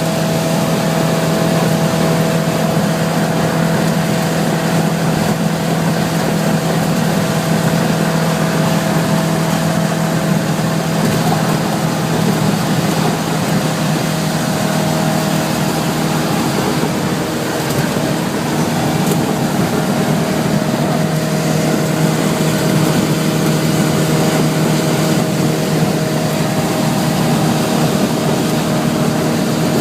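Suzuki LJ80's small four-cylinder engine running steadily as the vehicle drives, its note shifting slightly partway through, over a constant hiss of heavy rain.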